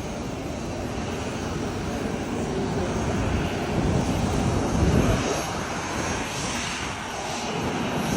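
Business jet's engines running: a steady rush with a low rumble that swells to its loudest about five seconds in, then eases off.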